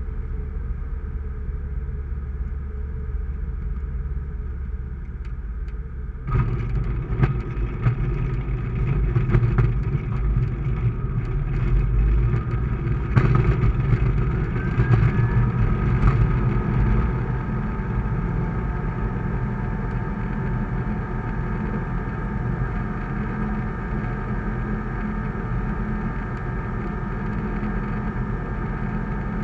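Sling 2's Rotax 912 flat-four engine heard from inside the cockpit during a touch-and-go: a low throttled-back rumble, then the throttle goes to full power about six seconds in. Knocks and rattles from the wheels on the runway come over the next ten seconds, and the engine then settles into a steady full-power drone in the climb.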